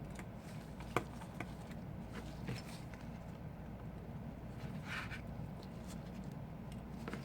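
Small clicks and taps of a precision screwdriver working the tiny screws inside an iPhone 5, with a sharper click about a second in, over a steady low hum.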